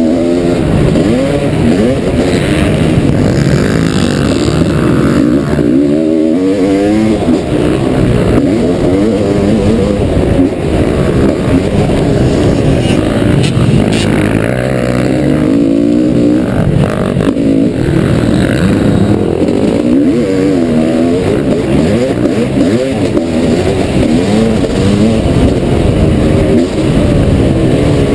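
Loud 1989 Honda CR500 single-cylinder two-stroke engine being ridden hard, revving up and backing off over and over, its pitch climbing and dropping with throttle and gear changes.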